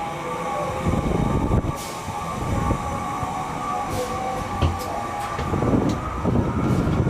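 Ferris wheel drive machinery running with a steady whining hum, and a few sharp clicks. Wind buffets the microphone in uneven low rumbles.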